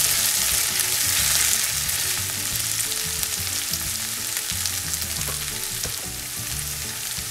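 Chopped onion, potato, green peas and tomato sizzling in hot oil in a nonstick frying pan while a spatula stirs them through. The sizzle eases a little toward the end.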